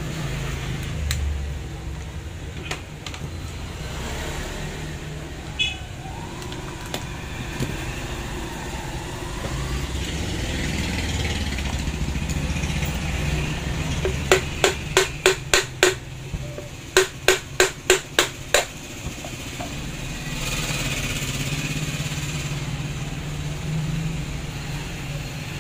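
Two runs of sharp taps, about four a second, each lasting a couple of seconds, from knocking on the Makita HR2470 rotary hammer's gear housing to free the gearbox assembly during disassembly. A steady low hum runs underneath.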